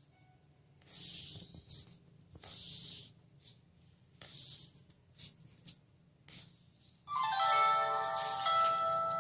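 A shaving blade scraping acrylic paint across the painting surface in a series of short strokes, each under a second. About seven seconds in, louder plucked-string background music starts.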